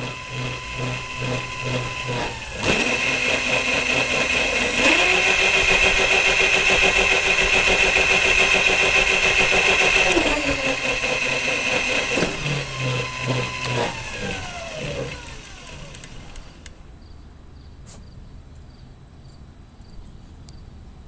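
A large brushed DC motor on an electric go-kart spinning up in three speed steps as the solenoid voltage controller switches in more battery voltage, its whine jumping higher at each step. It then steps back down three times and winds down with a falling whine to a stop.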